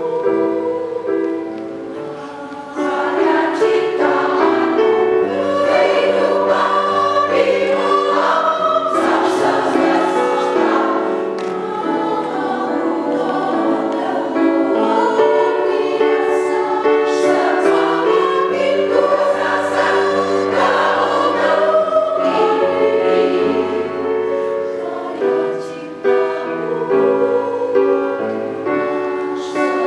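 Women's choir singing in several parts, holding sustained chords that shift from one to the next.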